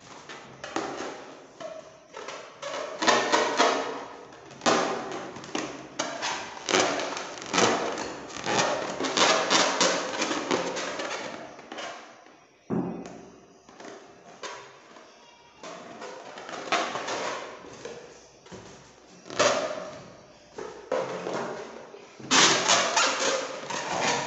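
Inflated latex balloons rubbed and squeezed by hand, giving a long run of rubbing and creaking rubber sounds in irregular surges, with brief lulls near the middle and just before the end.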